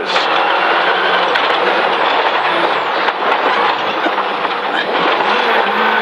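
Ford Fiesta RS Turbo rally car's turbocharged four-cylinder engine heard from inside the cabin, its revs rising and falling as it is driven hard through a pair of tight hairpins, over loud steady road and tyre noise.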